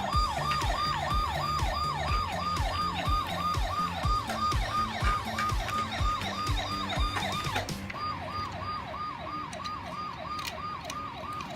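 Electronic police-siren sound: a quick falling wail repeating about three times a second, breaking off briefly about eight seconds in, then starting again. Under it runs background music with a steady beat.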